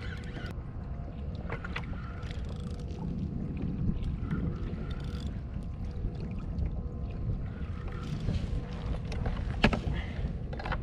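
Wind and water noise around a fishing kayak as a kingfish is fought on rod and reel, with a faint steady hum and a couple of sharp clicks of reel or tackle handling, about a second and a half in and near the end.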